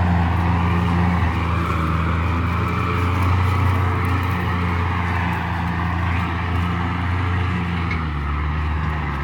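Heavy diesel engine running steadily under load, its note dropping slightly about eight seconds in.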